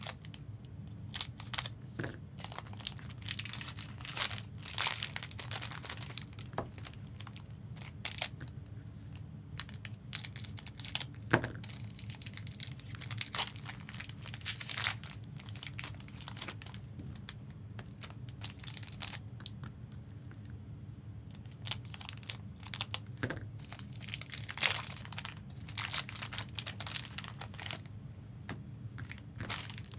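Foil trading-card pack wrappers crinkling and tearing as Fleer Ultra Wolverine packs are opened, in irregular crackly bursts, with one sharp click about eleven seconds in. A steady low hum runs underneath.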